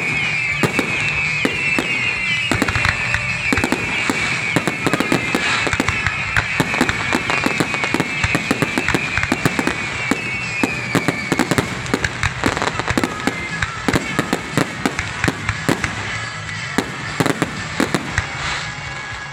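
Aerial fireworks display: rapid bangs and crackling from many shells bursting close together. For about the first ten seconds a run of short, high, falling whistles sounds over the bangs.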